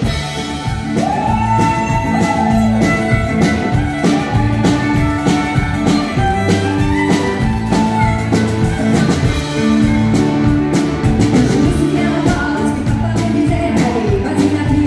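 Live country band playing with a steady drum beat, electric guitars and fiddle, and a woman singing into a microphone.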